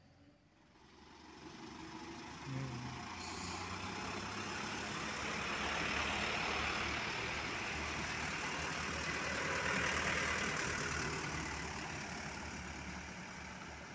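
Hino Dutro dump truck's diesel engine running as the truck drives slowly past at close range; the sound builds, is loudest in the middle, and fades toward the end.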